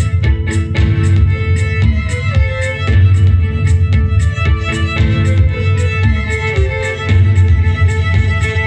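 Live band playing a song with a violin melody over bass and a steady drum beat.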